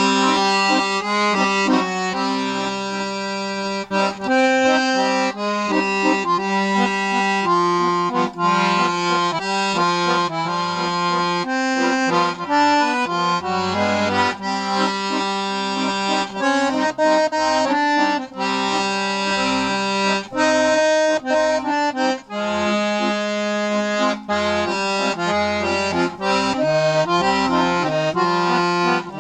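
A freshly restored 72-bass accordion, its reeds cleaned, waxed and retuned, played solo on an Argentinian tune. The melody moves over held bass notes and chords, and the playing starts right at the beginning.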